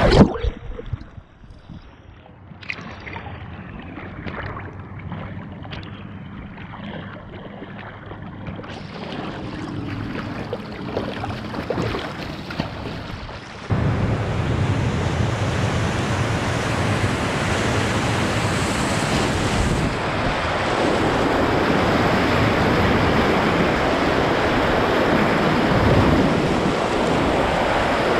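River whitewater rushing around a kayak: splashes and paddle strokes over quieter moving water at first, then, about halfway through, a sudden jump to a loud, steady rush of a river wave being surfed by the kayak.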